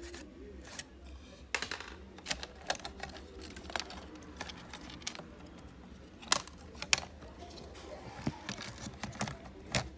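Irregular small clicks and taps from a laptop motherboard and its plastic housing being handled, with two sharper knocks a little past the middle.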